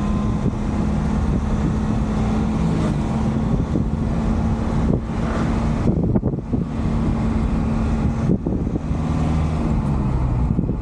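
JAC truck's diesel engine running steadily with road and wind noise, heard from inside the cab; the engine hum drops to a lower note about eight seconds in.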